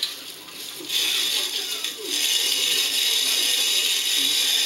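Hand-cranked cast-iron mill grinding roasted coffee beans: a steady, rasping grind that picks up about a second in, with a brief let-up near two seconds as the crank turns round.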